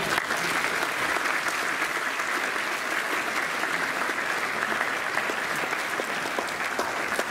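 A large audience of students applauding, steady clapping that starts at once and holds without a break.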